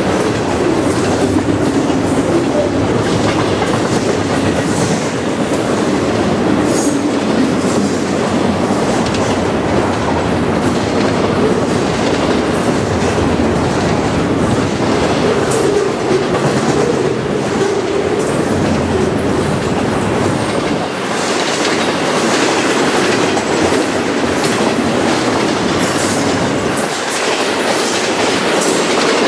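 Double-stack container train of well cars rolling past close by at speed: steel wheels clattering over the rail joints in a clickety-clack over a loud, steady rumble.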